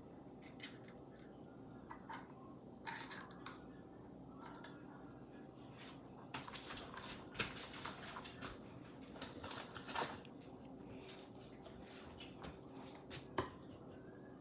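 Faint clicks, taps and brief rustles of kitchen items being handled at the counter, over a low steady hum. The sounds come in scattered bunches through the middle, and there is one sharp tap near the end.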